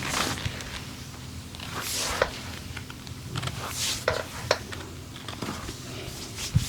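Massage sounds from hands working over skin: irregular swishing rubbing strokes, with a few sharp taps or clicks, the loudest near the end.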